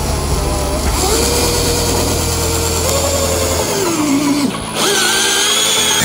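12 V cordless drill running as it screws a long ground peg into soil. The motor whine falls in pitch about four seconds in, stops briefly just before five seconds, then starts again and runs on.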